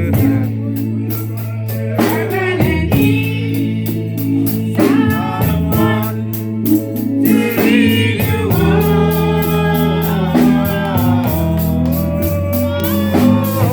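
Gospel music: a voice singing over a band, with long held bass notes and a steady percussion beat.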